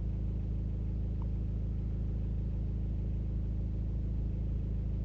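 Steady low hum with no distinct clicks or knocks.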